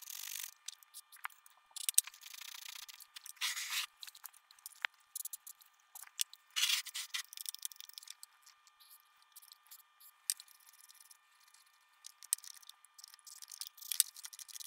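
DeoxIT contact cleaner sprayed from an aerosol can in several short hisses into the amplifier's slide switches, with clicks and rubbing as the selector knobs and linked switches are worked back and forth to spread the cleaner.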